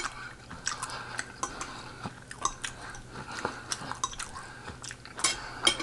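A person chewing food close to the microphone, with scattered small wet clicks and mouth sounds.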